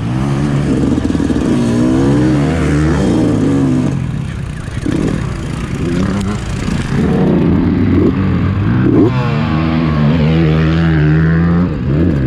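Fantic motocross bike's engine revving up and down under the rider as it is ridden round the track. The throttle eases off about four seconds in, then the engine pulls hard again.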